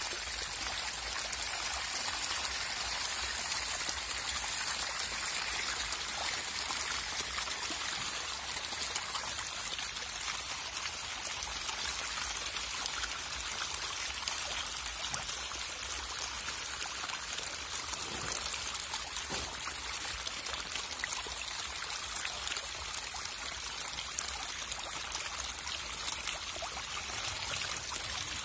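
A dense crowd of hybrid magur catfish thrashing and splashing at the surface of shallow water as they feed: a steady mass of many small splashes and water patter.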